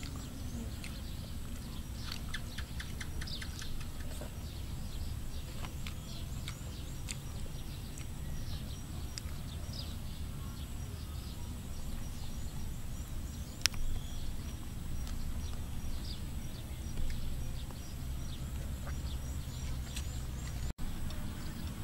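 Outdoor ambience: birds chirping here and there over a steady low background noise, with one sharp click about fourteen seconds in.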